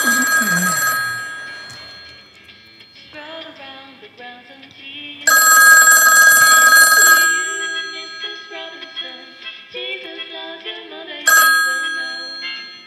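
Telephone ringing in long rings of about two seconds: one ends about a second in, another comes about five seconds in, and a third starts near the end. Softer music plays between the rings.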